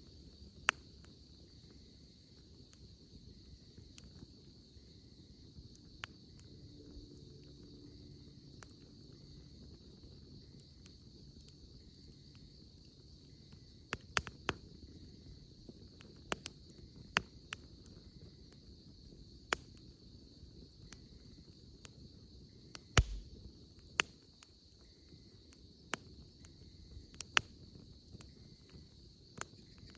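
Wood campfire crackling, with scattered sharp pops, over a steady high trill of insects.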